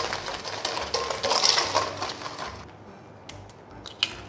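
Wire whisk beating eggs and granulated sugar in a stainless steel bowl: a gritty, scraping rattle of the wires against the metal, in quick bursts, stopping about two and a half seconds in. A few light clicks follow, then a sharp crack near the end as another egg is cracked on the bowl.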